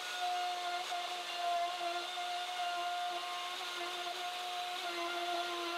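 Plunge router running steadily with a 1/2-inch straight bit, cutting a shallow dado in melamine-faced birch plywood: a steady high motor whine with a faint dip in pitch here and there as the bit works through the cut.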